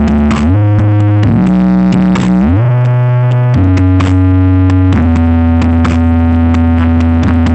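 Electronic dance music played very loud through a large stacked sound system at a sound check: long held synthesizer bass notes that slide up or down into the next every second or so, over a light beat.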